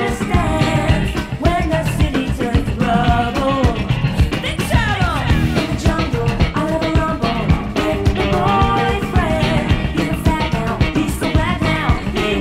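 Upbeat rock-and-roll song with a steady driving beat and a voice singing over it.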